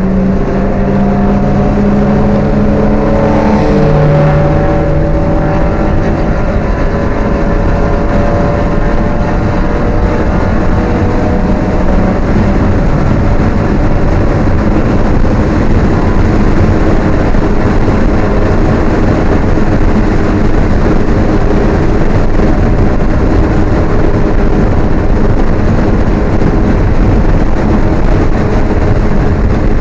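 Alfa Romeo 1750's twin-cam four-cylinder engine heard from inside the car at speed on track: the revs ease down over the first few seconds, then it runs on loud and steady under wind and road noise.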